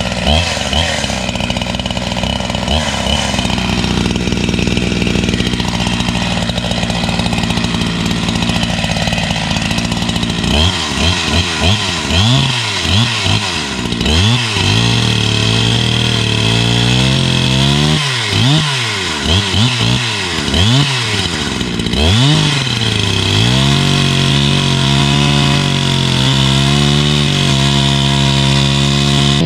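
Large chainsaw running, its engine note steady at first, then revved up and down sharply several times before being held at high speed.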